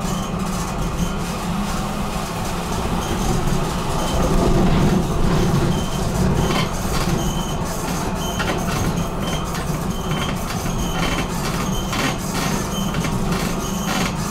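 BN GTL8 tram running along the track: a steady low hum of the rolling tram with a stream of short clicks and ticks from the wheels on the rails, growing busier from about six seconds in.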